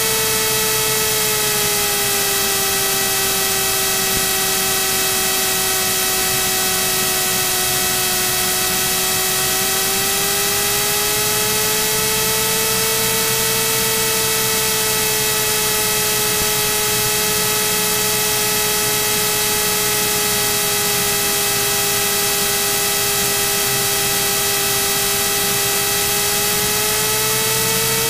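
Cockpit noise of a Cirrus SR22 taxiing: a steady engine drone under hiss, with a whine that drifts slowly down and back up in pitch.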